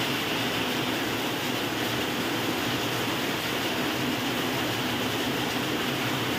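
Heavy monsoon rain falling, a steady, even rushing that does not change.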